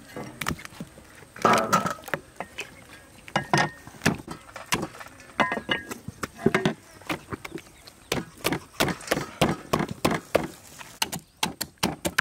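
Cleavers chopping raw chicken on a wooden chopping board: irregular sharp knocks, coming in quick runs at times.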